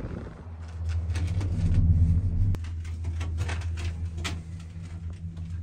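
Gondola lift cabin riding the cable: a steady low hum, swelling about a second and a half in, with scattered light clicks and rattles.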